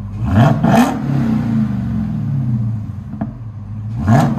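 Supercharged 6.2-litre Hemi V8 of a Dodge Charger Hellcat, with factory mid mufflers and the rear resonators deleted, blipped from idle: the pitch rises fast to a loud blare, then the revs fall back to a steady idle. A second blip starts near the end.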